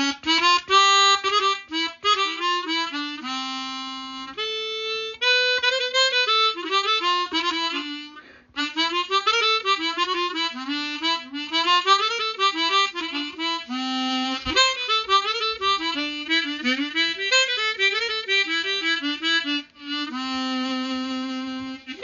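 Easttop T1040 10-hole chromatic harmonica being played: quick runs of single notes rising and falling, with a few longer held notes and two short breaks, about 8 seconds in and near the end.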